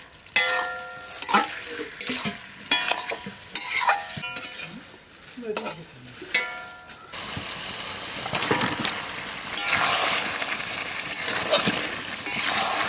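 A spatula scraping and knocking around a metal kadai of mutton curry, the pan ringing with each stroke. About seven seconds in this gives way to a steady sizzling of the curry frying.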